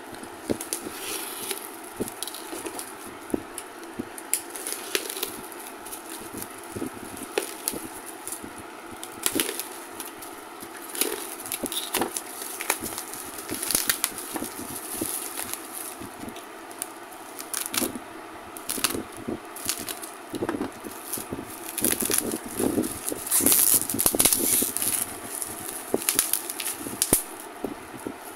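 Plastic parcel wrapping and packing tape being cut with a utility knife, then torn and pulled off by hand. It makes irregular crackling, rustling and crinkling with many sharp clicks, loudest about three quarters of the way through.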